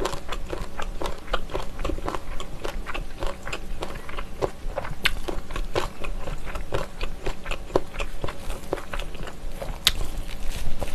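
Close-miked chewing of a mouthful of gimbap (seaweed-wrapped rice roll): an irregular run of small wet clicks and smacks, with a sharper bite into the whole roll near the end.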